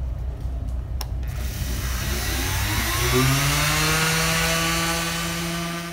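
An electric power tool's motor spins up about a second in, its whine rising in pitch and then holding steady at full speed, over a low rumble.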